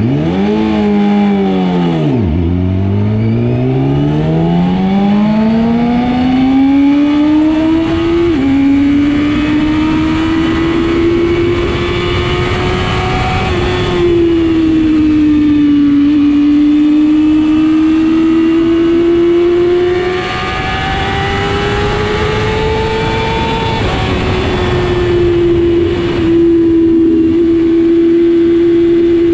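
Motorcycle engine pulling away from walking pace and accelerating hard up through the gears. The revs dip at first, then climb in long rising sweeps with a sudden drop at each upshift, ease off once about halfway, and settle to a steady pitch near the end.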